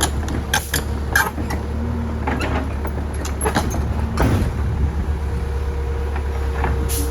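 Heavy machinery engine running steadily with a deep rumble, with scattered metal clanks and knocks over it.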